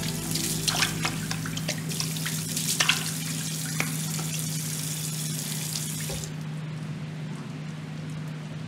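Water running from a tap into a sink, with splashes as hands throw water onto the face. The running water cuts off suddenly about six seconds in, leaving a low steady hum.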